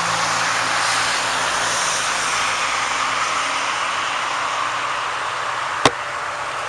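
Steady road traffic noise, a wash of passing vehicles that slowly eases off, with a single sharp click about six seconds in.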